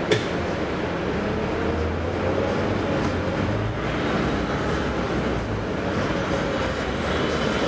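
Volvo B9TL double-decker bus's diesel engine heard from inside the bus, pulling away and gathering speed, its drone slowly rising in pitch. A sharp click sounds just at the start.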